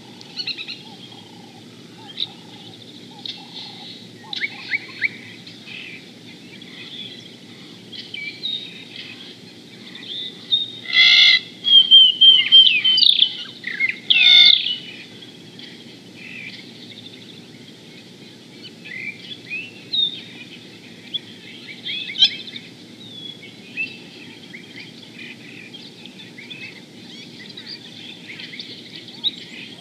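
Wild birds chirping and calling, with a loud flurry of high, quick downward-sweeping calls near the middle, over a steady low hiss.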